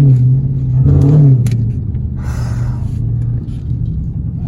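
2016 Dodge Challenger Hellcat's supercharged V8 engine running loud under throttle while driving, its pitch lifting briefly about a second in, then settling to a steady drone.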